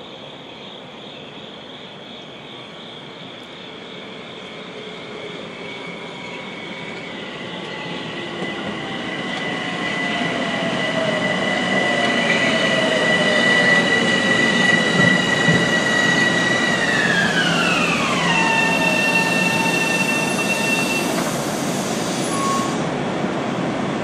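Metro-North M7A electric multiple-unit train pulling into the station and braking to a stop: wheels on rails growing louder as it draws alongside, with a high electric propulsion whine that holds steady and then slides steeply down in pitch about 18 seconds in as the train slows.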